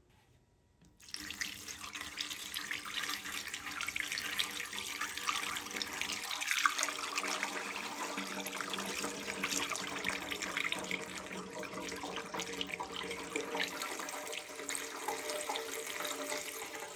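Vinegar poured in a steady splashing stream into a motorcycle's steel fuel tank, filling it to the brim to soak out the rust. The pour starts about a second in and stops near the end.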